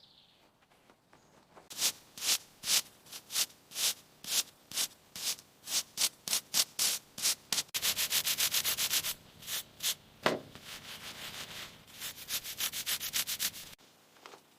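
Repeated abrasive rubbing strokes on a surface, about two or three a second, that speed up into fast back-and-forth scrubbing about eight seconds in and again near the end, with one heavier stroke around ten seconds in.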